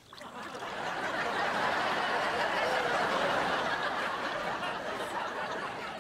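Sitcom studio audience laughing, swelling over the first second, holding, then dying away near the end.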